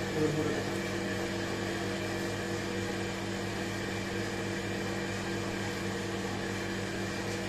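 Steady machine hum, a low drone with several constant tones that do not change.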